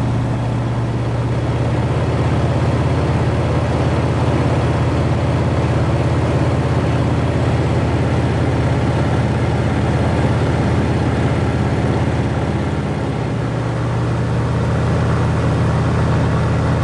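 Cessna 195's seven-cylinder radial engine and propeller droning steadily in level flight, heard inside the cabin together with the rush of airflow.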